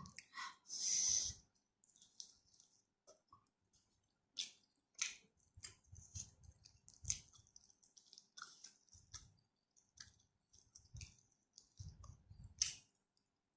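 Close-up mouth sounds of a person eating spicy stir-fried chicken and rice: irregular wet clicks and smacks of chewing, with a breathy hiss of air about a second in.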